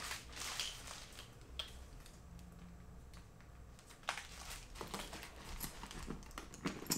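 Faint rustling and crinkling of an umbrella's canopy as it is furled and handled, then scattered knocks and rustles as it is packed into a suitcase, the sharpest knock about four seconds in.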